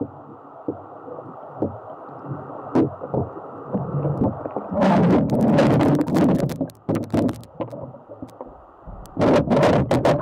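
Pool water lapping and sloshing against a floating waterproof camera, heard muffled, with scattered small knocks. Louder splashing comes about five seconds in and again near the end.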